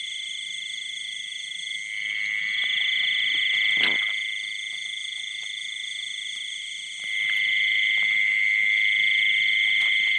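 Dense chorus of frogs calling, a continuous high pulsing trill that grows louder about seven seconds in. A short knock sounds about four seconds in.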